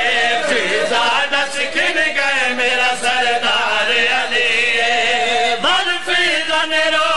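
Male voices chanting a slow, drawn-out mourning lament, with long, wavering held notes. A voice slides sharply up in pitch about six seconds in.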